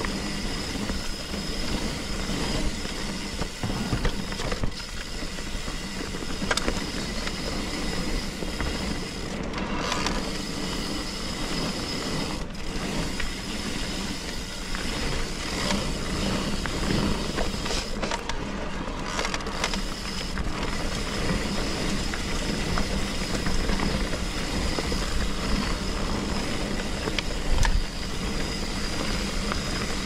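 Electric mountain bike on a trail: the rear hub ratcheting steadily as the bike rolls, with irregular knocks and rattles from the bike over rough ground.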